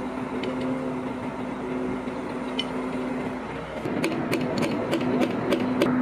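Crane engine running at a steady hum while a wall panel is set in place; from about four seconds in, a quick run of sharp knocks, about four a second.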